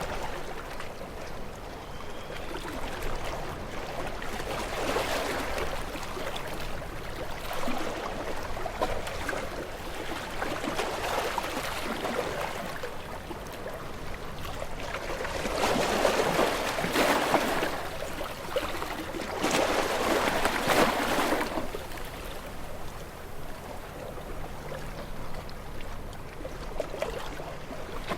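Sea waves washing and splashing against shoreline rocks in repeated surges, with two bigger surges past the middle.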